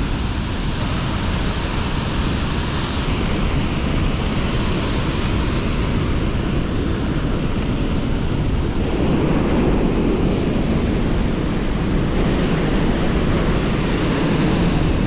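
Flood-swollen creek pouring over a waterfall: a steady, loud rush of water. About nine seconds in the sound turns deeper, with less hiss.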